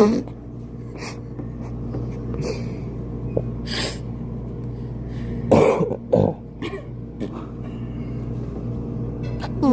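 A person's short cough-like bursts, with the two loudest a little over halfway through. They sound over the steady hum of laundromat machines.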